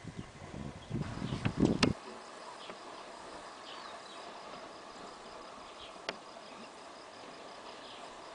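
Bush ambience with a steady insect drone, a faint fast ticking trill and a few short chirps. For the first two seconds a low rumble with a few sharp knocks lies over it, then stops abruptly, leaving the quieter ambience.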